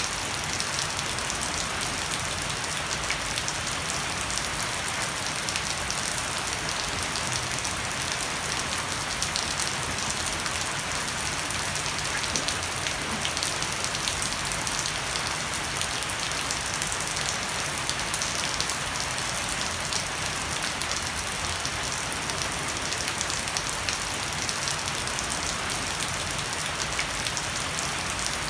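Heavy rain falling steadily on a wooden deck and leafy shrubs, with water pouring off the edge of a thatched roof; a dense, even hiss with fine drop patter and no let-up.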